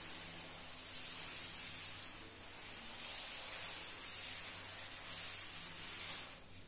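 Cloth duster rubbing across a chalkboard, wiping it clean in repeated sweeping strokes: a rough hiss that swells and eases with each stroke.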